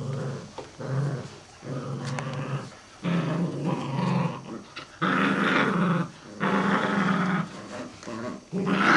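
Shetland Sheepdogs growling in play, a run of growls each lasting about half a second to a second, louder from about halfway through.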